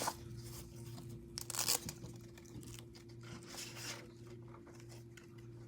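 Rustling and crinkling from handling the knives' sheath or packaging, in three short bursts, over a steady low hum.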